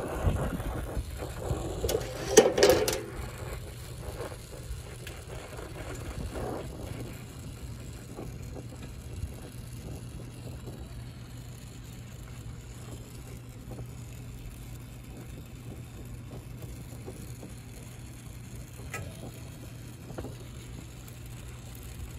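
Brass brazing torch and its hoses being handled and moved into place, with a clatter and scrape about two seconds in and a few lighter knocks after. A steady low hum runs underneath.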